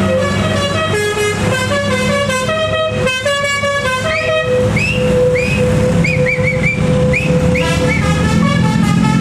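Bus 'telolet' Basuri multi-tone horn playing a quick stepped melody. From about four seconds in it switches to a held note with a string of short rising whoops over it, and engine hum runs underneath.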